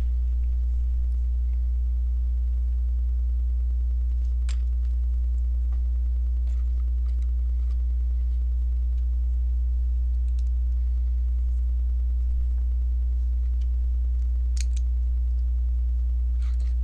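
Steady low electrical hum, with a few sharp clicks of plastic LEGO bricks being handled, about four seconds in and near the end.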